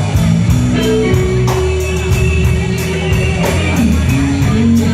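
Blues-rock trio playing a slow blues: electric guitar with bends over bass and drums.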